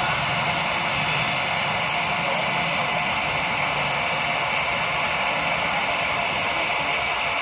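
Hot air gun running steadily with a constant hiss of its fan and air blast. It is melting a plastic welding rod into a plastic water tank to seal a leak.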